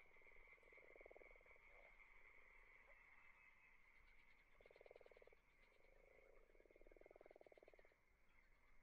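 Faint frog calls: three rapidly pulsed, low croaks, the last and longest lasting over a second, over a steady faint high-pitched tone.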